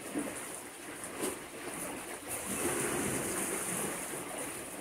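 Small waves washing and lapping at the water's edge, a steady wash of water noise.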